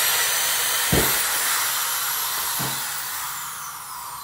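Power drill with a 5/32-inch bit running as it reams out the plastic microphone hole in a Baofeng UV-5R radio's front case: a steady, hissing motor whine that slowly falls in pitch and fades, with a light knock about a second in.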